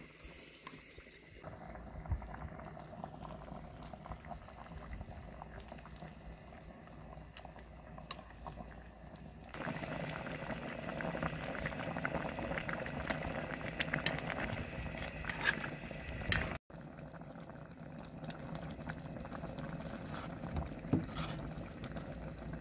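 Pan of spicy fish stew (maeuntang) boiling and bubbling. It gets louder about ten seconds in, with a brief dropout past the middle.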